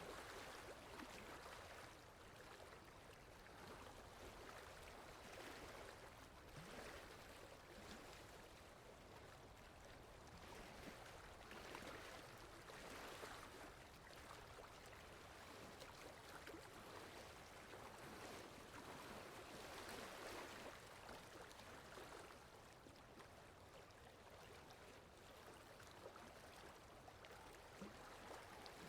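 Faint water lapping: a soft wash that swells and fades irregularly every few seconds.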